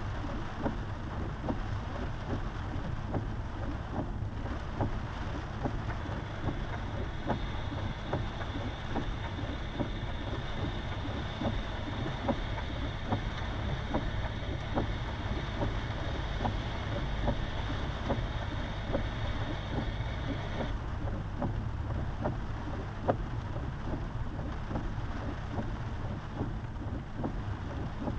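Jeep driving on a wet, rain-soaked road, heard from inside the cabin: a steady low rumble of engine and tyres with scattered ticks. A higher steady hum joins about seven seconds in and cuts off suddenly about twenty-one seconds in.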